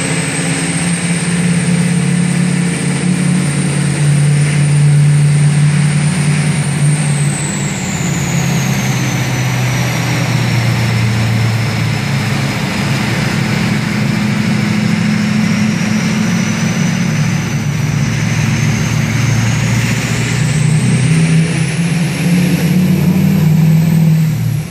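Duramax V8 turbodiesel in a dually race truck running under way, with the high whistle of its billet 72 mm Danville Performance VGT turbo over a steady low engine drone. The whistle holds high, sinks slowly through the middle, then climbs higher again near the end.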